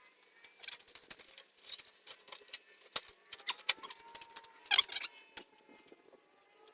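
Screwdriver clicking and scraping as screws are worked out of a Mk1 Volkswagen Golf's grille, with light knocks of the parts being handled and a few thin squeaky tones. A louder clatter comes about five seconds in.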